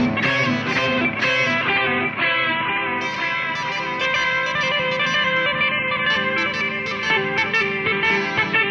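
Electric guitar music played through an effects unit, with quick plucked notes.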